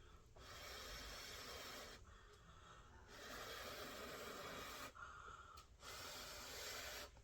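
Three soft, long breathy blows, each about a second and a half, typical of someone blowing on a hot piece of chicken to cool it.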